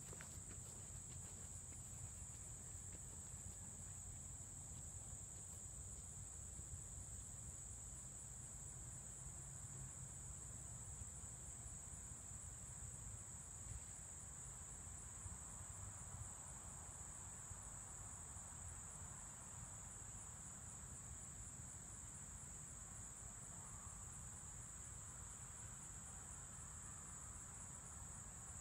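Insect chorus in a summer field: a faint, unbroken high-pitched trill over a low, even background rumble.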